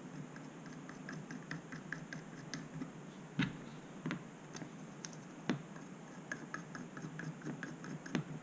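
Faint, irregular ticks and scratches of M3x25 standoffs being threaded by hand onto the screws of a carbon-fibre drone frame, with a few louder knocks as the frame parts are handled.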